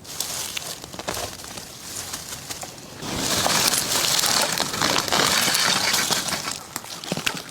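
Crackling and rustling of dry leaves and undergrowth being handled and pushed through while foraging wild green onions, with many small snaps; it grows louder and denser about three seconds in.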